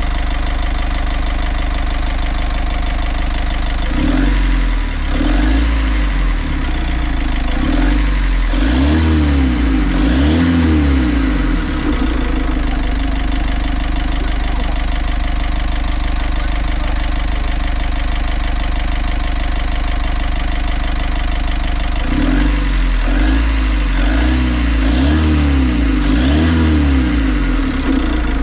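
Mitsubishi L300 Euro 4 common-rail turbo-intercooler diesel engine idling, then revved in a run of quick throttle blips that rise and fall; it settles back to idle, then is blipped again several times near the end.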